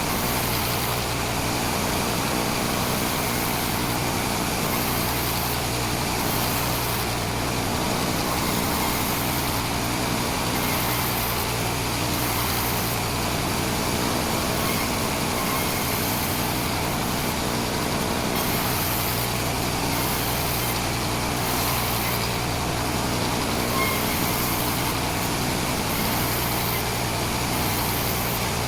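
Sawmill machinery running steadily: a continuous, even mechanical noise that holds at one level throughout.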